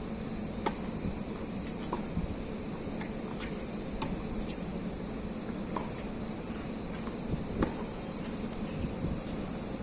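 Tennis rally: a series of sharp tennis ball strikes and bounces, irregularly spaced, the loudest near the end. Under them run a steady wind noise and a constant high-pitched hum.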